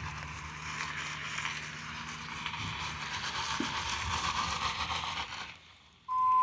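Tow truck running steadily, a low hum under a hiss, while it pulls a pickup by cable; it fades out about five seconds in. Then a loud steady beep sounds briefly near the end and cuts off abruptly.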